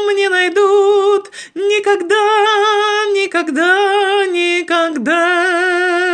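A solo female voice singing a cappella, holding long notes with vibrato over a few phrases separated by short breaths.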